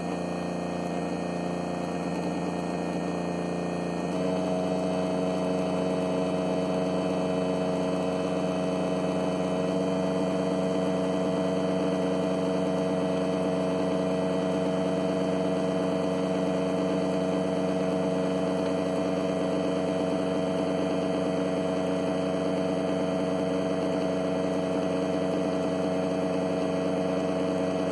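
Electric radiator cooling fan motor running steadily under PWM control, a humming whine of several steady pitches that gets a little louder and stronger about four seconds in.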